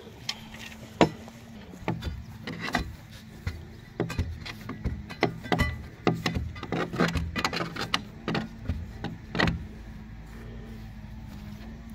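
Hand tamping bar ramming soil backfill around a pole in its hole: a string of thuds at uneven intervals that stops a little before the end. A steady low hum runs underneath.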